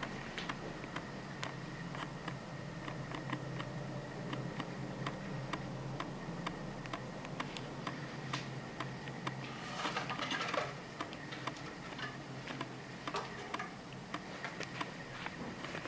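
Scattered light clicks and taps from a cat moving about on a wooden cat tree with sisal-wrapped posts, with a brief scratchy rustle about ten seconds in. A low steady hum sits underneath.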